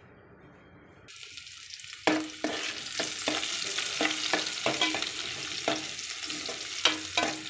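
Sliced onions frying in hot oil in a metal pot. A sizzle starts about a second in, and from about two seconds in the onions are stirred, with a utensil scraping and knocking on the pan a few times a second.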